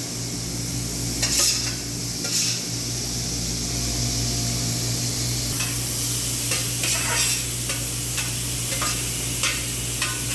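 Cubes of beef frying in hot olive oil in a pan: a steady sizzle, with a utensil scraping and knocking against the pan at irregular moments as the meat is stirred.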